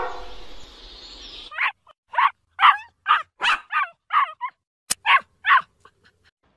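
Dog barking: about ten short, sharp barks in quick succession, starting about a second and a half in, with a single click partway through.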